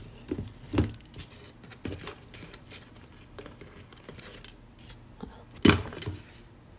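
A hand rummaging inside a plastic tub of Herbalife shake powder, with a plastic measuring scoop scraping, rustling and knocking against the tub's sides. There is a sharper knock near the end.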